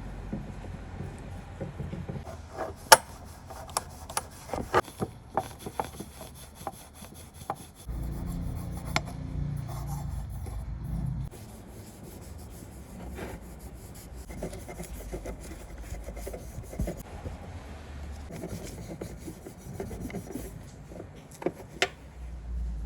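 Hand rubbing and rasping on a restoration part, with scattered sharp taps and clicks; the sound shifts in character a few times, as between separate bits of work.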